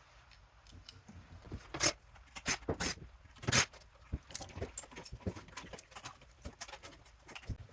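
Irregular metal clinks and clatters of tools and parts being handled while a power supply unit is taken apart, with the loudest knocks about two and three and a half seconds in.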